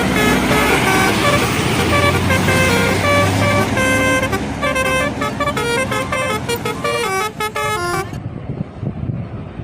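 A bus passes close with loud engine and road noise. From about four seconds in, its telolet horn plays a quick tune of stepping notes, which stops about eight seconds in.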